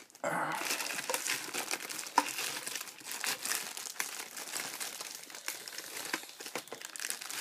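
Thin plastic bag crinkling and rustling continuously as hands work a speaker out of it, with one sharp click about two seconds in.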